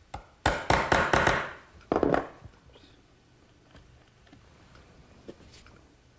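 Wood chisel paring the stopped corner of a routed rabbet square in a mesquite top: a quick run of sharp cuts and chops in the first second and a half, one more about two seconds in, then only faint scrapes of the blade.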